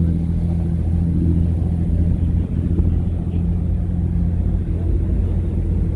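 Steady low drone of a passenger ferry's engine running at constant speed.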